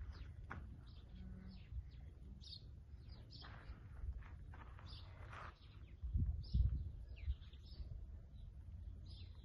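Small birds chirping, many short high calls one after another, over a steady low rumble, with a few heavier low thumps about six to seven seconds in.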